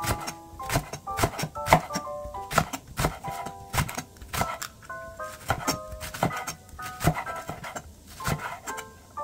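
Chef's knife slicing a green onion on an end-grain wooden cutting board: repeated sharp knocks of the blade on the board, several a second, over light background music of short plinking keyboard notes.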